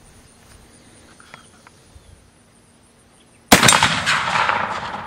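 A single shot from a Pedersoli reproduction Remington Rolling Block rifle firing a black powder cartridge, about three and a half seconds in, its report rolling away in a long echo.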